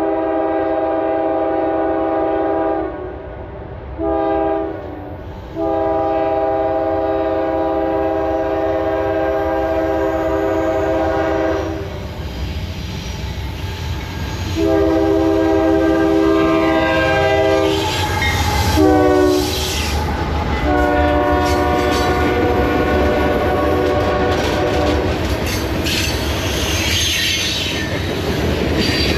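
Norfolk Southern diesel freight locomotive's air horn blowing for a grade crossing: a long blast, a short one, then more long blasts. The pitch drops as the locomotive passes about two-thirds of the way through. After that the freight cars rumble past with a clickety-clack of wheels over the rail joints.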